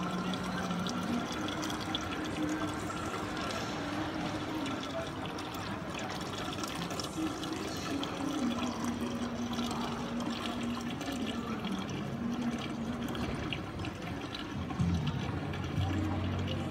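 Steady rush and trickle of water from a marine reef aquarium's circulation, with faint low notes that change pitch every second or two and grow louder near the end.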